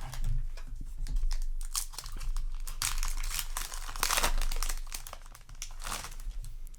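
Foil wrapper of a Yu-Gi-Oh! Alliance Insight booster pack crinkling and tearing as it is opened, in irregular crackling bursts that are thickest around the middle and again near the end.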